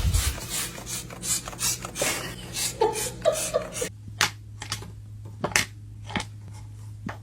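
Irregular sharp clicks and taps, with a few short faint squeaks a little after the middle. After an abrupt change in background, sparse clicks continue over a steady low hum.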